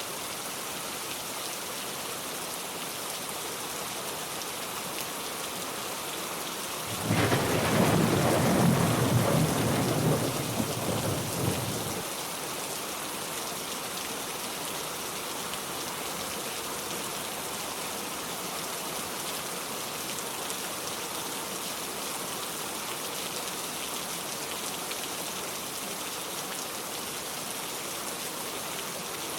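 Steady heavy rain falling, with a rumble of thunder about seven seconds in that lasts about five seconds and stops abruptly.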